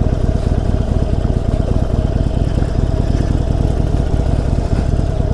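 Harley-Davidson Forty-Eight's 1200 cc air-cooled V-twin running at a steady engine speed, its exhaust a rapid, even pulsing with no revving up or down.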